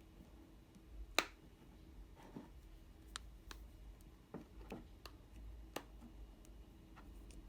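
Small sharp clicks and taps at irregular intervals, the loudest about a second in: an iPhone SE's display being pressed down so its clips snap into the phone's frame.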